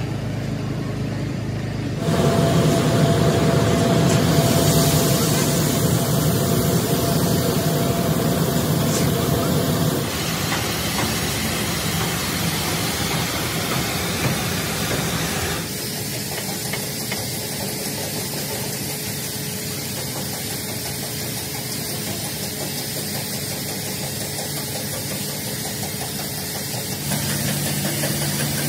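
Steady mechanical running noise with a hiss, changing abruptly in character about 2, 10, 16 and 27 seconds in.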